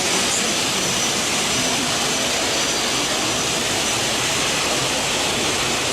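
LM4 CNC 6000 four-axis machining center running: a steady rushing noise with a thin, steady high whine through it.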